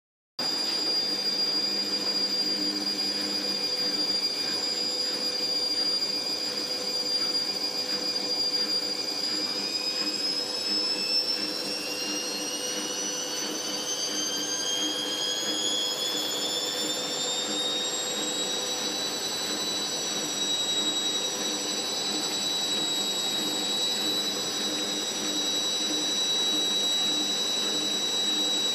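Fagor washing machine spinning up into its spin cycle: the motor's high whine rises in pitch for several seconds, then holds steady at spin speed over a steady hum.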